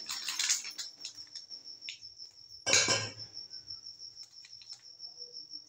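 Metal spoon clinking and scraping in a steel mixing bowl while baking powder is spooned from a paper packet, with one louder rustle and clatter about three seconds in. A steady high-pitched trill carries on underneath.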